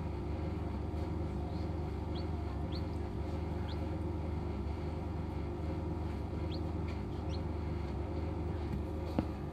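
Hatching chicks peeping inside an egg incubator: short, high, upward-sweeping peeps every second or so, over the incubator's steady motor hum. A single click sounds near the end.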